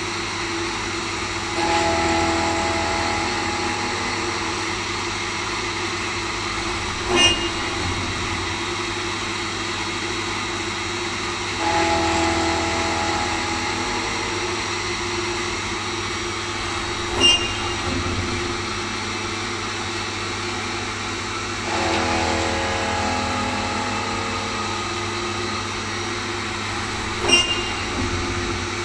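CNC machine running an edge-machining cycle: a steady machine hum, with a louder cutting sound that sets in about every ten seconds and slowly fades. A short sharp sound comes midway through each cycle, three times in all.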